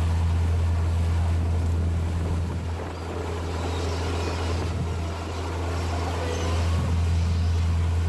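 Sightseeing cruise boat's engine running with a steady low drone, over the rushing of its wake. A few faint gull cries come through now and then.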